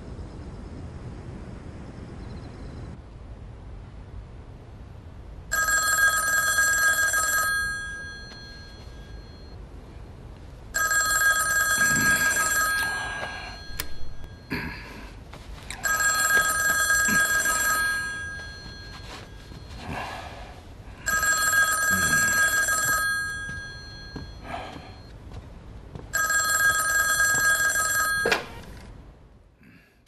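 Old-fashioned telephone bell ringing: five rings of about two seconds each, coming roughly every five seconds, until the call is picked up.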